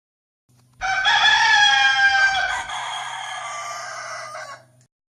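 A rooster crowing once: a single drawn-out crow of about four seconds that starts about a second in, loud at first, then trails off more quietly with a slightly falling pitch.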